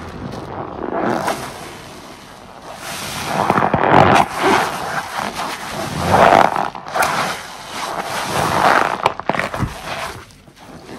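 A large sponge thick with dish-soap foam being squeezed in rubber-gloved hands, making wet, bubbly squelches. Each squeeze swells and fades, about four times in all.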